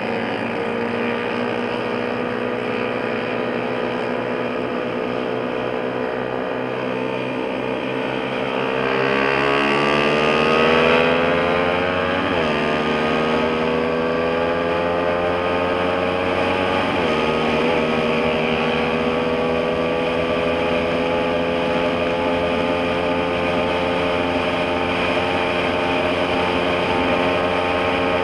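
Motorcycle engine running steadily, then rising in pitch as it accelerates about a third of the way in, with two quick dips in pitch at gear changes, after which it holds a steady, slowly climbing note.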